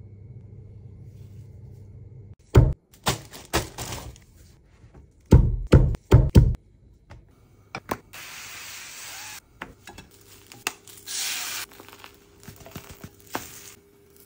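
Two clusters of loud, sharp knocks, then two short bursts of hiss with a few light clicks.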